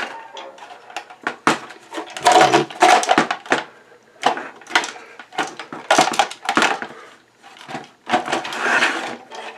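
Plastic and metal parts of an old APC battery-backup UPS being pried, pulled and handled during disassembly: a run of irregular crunching, cracking and scraping noises with louder bursts about two seconds in, around six seconds and near the end.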